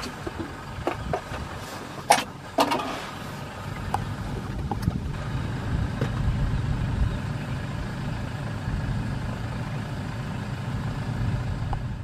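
A vehicle engine idling, a steady low rumble that grows louder about four seconds in, with a few sharp knocks just before it.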